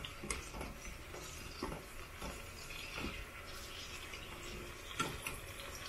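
Garlic cloves deep-frying in sesame oil in a small saucepan, close to done: a steady sizzle of bubbling oil with scattered light clicks as wooden chopsticks turn the cloves against the pot.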